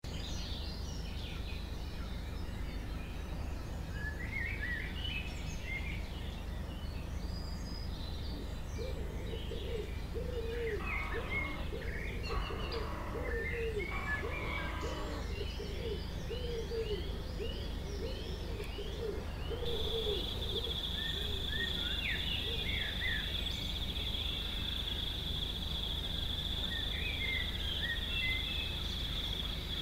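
Birds chirping and calling over a steady low rumble of outdoor background noise. About two-thirds of the way through, a steady high-pitched tone comes in and holds.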